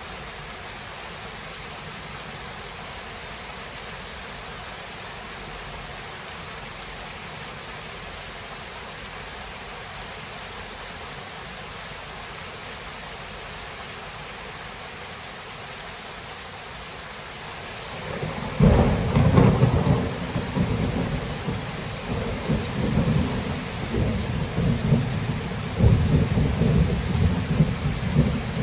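Steady rain hissing, then about two-thirds of the way in a loud thunderclap breaks and rolls on as low rumbling thunder that swells again twice, over the continuing rain.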